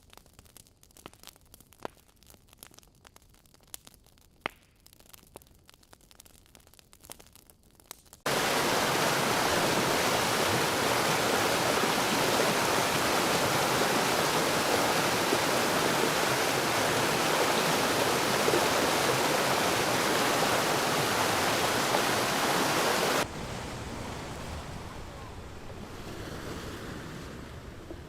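Faint scattered crackles and clicks, then a loud, even rushing noise that starts abruptly about eight seconds in. About fifteen seconds later it cuts to a softer, duller rushing.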